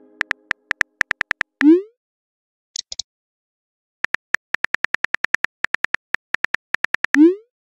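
Phone keyboard key-click sound effects in a quick run as a text message is typed, then a short rising whoosh as the message is sent. A second, longer run of key clicks follows, ending in another rising send whoosh near the end.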